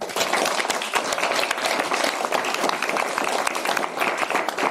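Audience applauding: a steady mass of many hands clapping.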